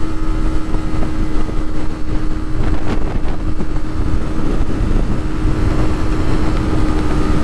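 Yamaha R3's parallel-twin engine running at a steady pitch while the motorcycle is ridden, under heavy wind rumble on the helmet microphone.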